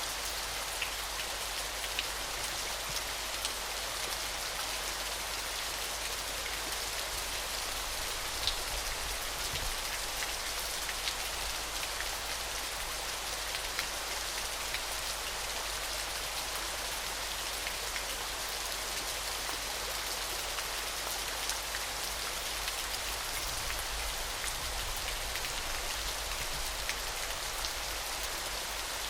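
Falling water: a steady, even hiss with scattered sharp drop splashes over it.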